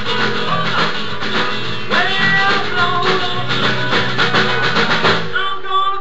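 A blues band playing live: guitar, bass, keyboard and percussion keeping a steady beat, with a man singing over it. The beat drops out about five seconds in.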